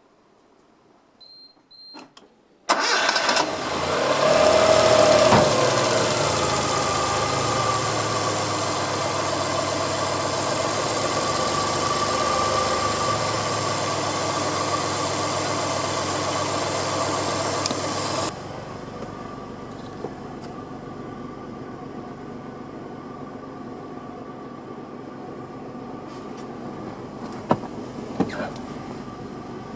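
A few light clicks and a short beep, then the Suzuki Cappuccino's turbocharged three-cylinder kei engine starts suddenly and runs steadily. About two-thirds of the way through the sound drops abruptly to a quieter steady running.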